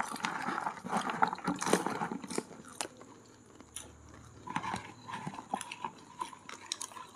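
Masala popcorn being chewed: irregular crisp crunches of mouthfuls, with a brief lull about halfway through.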